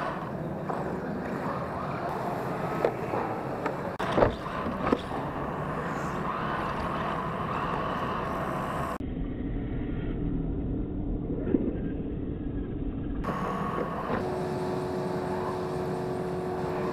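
Radio-controlled drift cars running on a carpet track: a steady whine of small electric motors over tyre noise, with a few sharp knocks about four seconds in. The sound turns muffled for a few seconds past the middle, and near the end a clear steady whine comes from the car carrying the camera.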